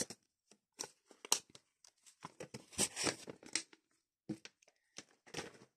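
Match Attax trading cards being handled and set down: a faint, irregular run of short rustles and light taps of card against card.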